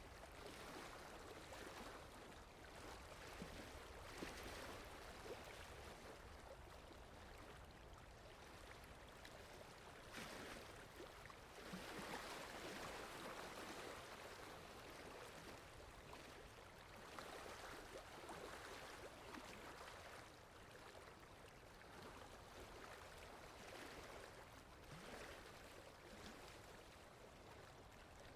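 Faint water lapping, with wind and a steady low rumble underneath; the splashing swells and fades every few seconds.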